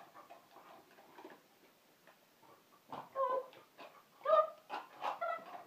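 A dog whining in short pitched calls, three times in the second half, with faint light clicks before them.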